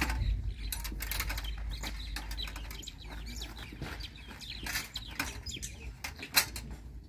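Metal clicks and knocks from the folding steel frame of a portable braai as its parts are pushed together and folded up, with a sharper knock near the end. Birds chirp in the background over a low steady rumble.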